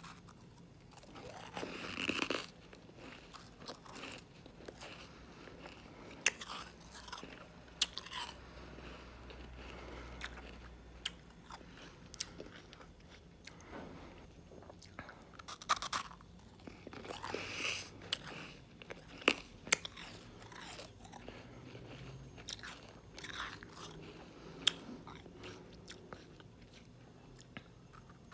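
Shaved ice frozen from sparkling water being bitten and chewed: crunching mouthfuls with many sharp little cracks. The heaviest bites come about two seconds in and again past the middle.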